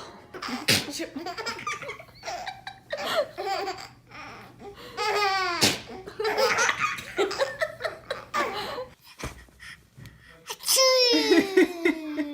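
Laughter in repeated bursts, much of it a baby's belly laughing, broken by a few sudden sharp vocal bursts near the middle and near the end.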